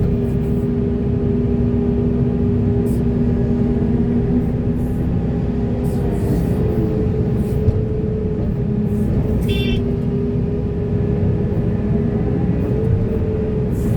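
Heavy excavator's diesel engine and hydraulics running steadily, with a steady whine that shifts down in pitch about halfway through and a brief high squeal about two-thirds of the way in.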